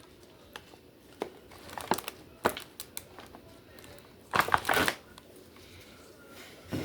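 Wet lettuce leaves rustling and crackling as they are tossed and fluffed by hand in a pan, with a louder rustle about four and a half seconds in.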